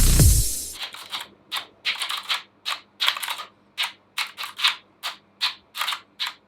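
Intro music cuts off, then a computer keyboard is typed on: a quick, irregular run of sharp clacking keystrokes, a few per second. The sound is called irritating.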